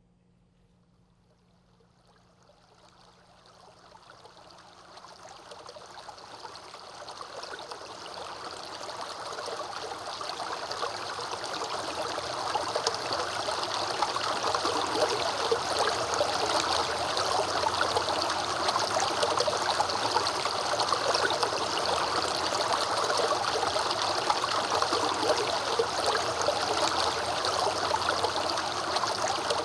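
Rushing, stream-like running water, fading in gradually from near silence over about twelve seconds and then continuing steadily.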